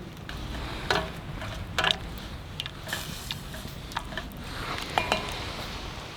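Irregular clinks and knocks of utensils against dishes and pans, several sharp strikes, some with a brief metallic ring.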